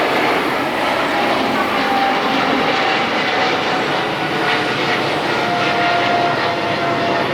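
Jet airliner departing, its engines at takeoff power: a steady, loud roar with a faint whine that slides slowly down in pitch.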